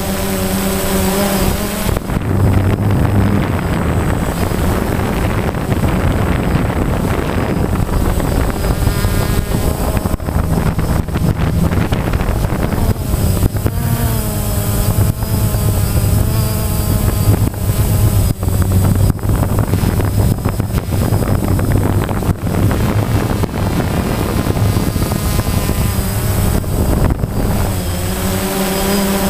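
DJI Phantom quadcopter's motors and propellers buzzing loudly and steadily, picked up close by the camera riding on the drone. The pitch wavers up and down at times as the motors speed up and slow down while it manoeuvres, with some rushing air on the microphone.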